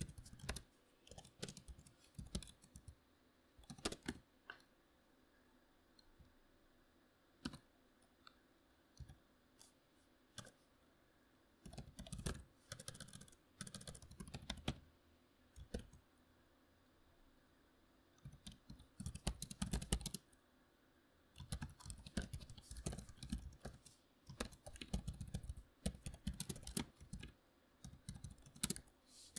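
Membrane computer keyboard being typed on in irregular bursts of quick keystrokes, separated by short pauses. There is one longer pause of about three seconds a little past the middle.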